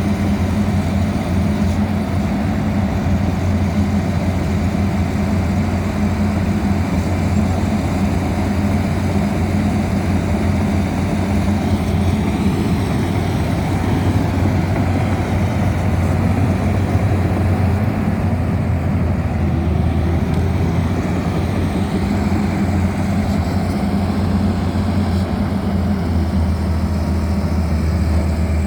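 Excavator's diesel engine running steadily at an even idle-like speed, with a strong low hum.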